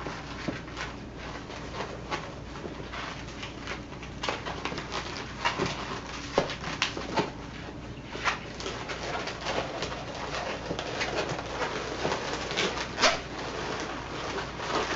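Latex modelling balloons squeaking and rubbing against each other as they are twisted and locked together by hand, in irregular short squeaks throughout.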